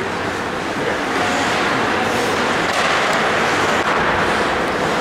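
Steady noise of an indoor ice hockey rink during play, with a few faint clicks about three seconds in.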